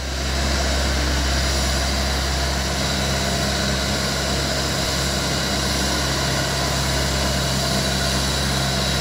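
Self-propelled mechanical tobacco harvester running steadily as it works along a row, a constant engine drone with a low hum.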